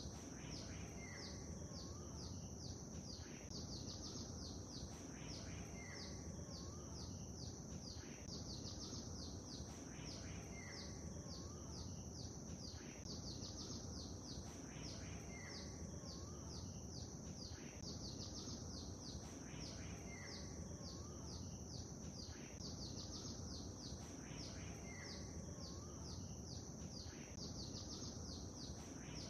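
Birdsong over a steady low wash of water: rapid high chirps throughout, with one short bird call repeating about every three seconds.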